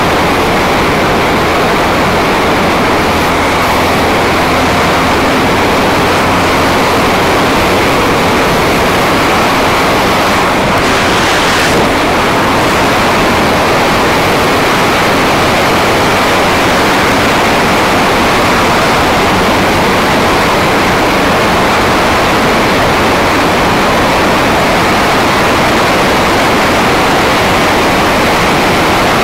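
Steady wind rush over the action camera's microphone at riding speed, with a Honda CBR250R's single-cylinder engine running evenly underneath.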